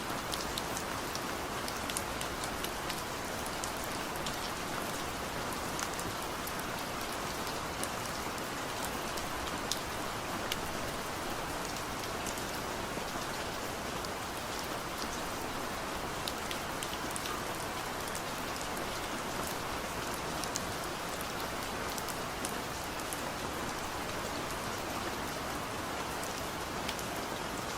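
Steady rain falling, with the close, scattered ticks of individual drops hitting a surface.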